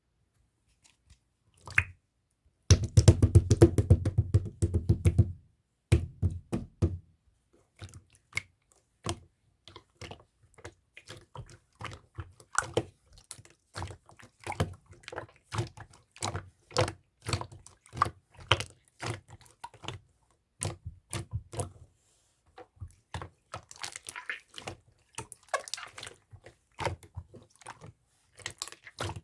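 Hands squishing, pressing and poking clear slime: a long run of small wet clicks and pops, with a dense stretch of louder squelching a few seconds in.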